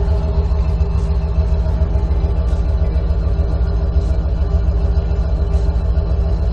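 A 1991 Corvette's L98 5.7-litre V8 idling steadily through its exhaust, a low, even, pulsing rumble.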